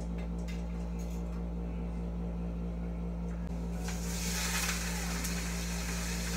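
Raw chicken pieces dropped into a hot wok over a gas burner, starting to sizzle about four seconds in and sizzling steadily after. A steady low hum runs underneath, with a few light clicks before the sizzling starts.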